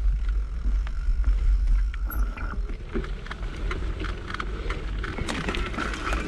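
Mountain bike riding over a woodland trail: a steady low rumble on the microphone with scattered clicks and rattles from the bike.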